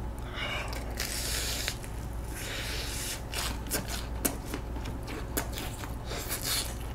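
Close-up mouth sounds of a person chewing tteokbokki (chewy rice cakes in a sticky spicy sauce): wet smacks and many short sharp clicks, with a hissy breath or slurp about a second in. A low steady hum sits underneath.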